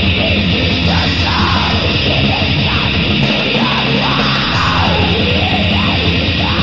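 Black metal from a 1999 cassette demo: a dense, steady wall of distorted guitars and drums.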